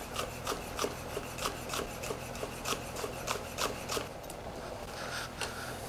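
Chef's knife slicing scallions thinly on an end-grain wooden cutting board: an even run of blade taps on the board, about three a second, stopping about four seconds in, then a short soft scrape.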